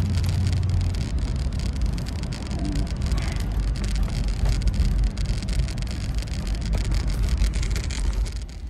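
A 1996 Chevrolet Impala SS's 5.7-litre LT1 V8 and road noise heard from inside the cabin: a steady low rumble with many small crackles over it.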